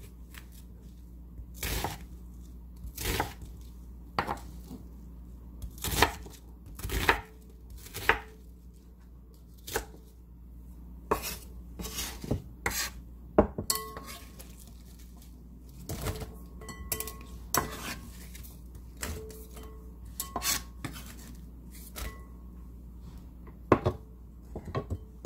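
A chef's knife chopping a white onion into dice on a wooden cutting board: sharp, irregular knocks of the blade through the onion onto the board, about one or two a second.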